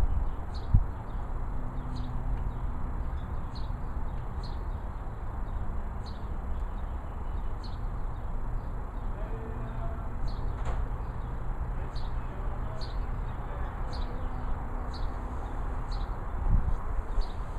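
Wind rumbling on the microphone, with a bird chirping over and over at an even pace, a little faster than once a second.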